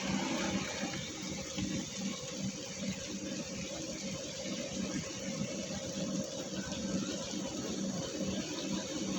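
A heavy machine's diesel engine running steadily with a low hum, under an even hiss.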